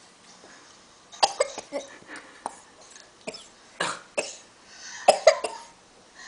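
A fit of short, repeated coughs starting about a second in: coughing brought on by drinking water.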